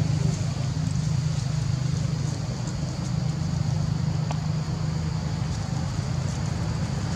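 A steady low engine rumble, like a motor vehicle running nearby, with a faint click about four seconds in.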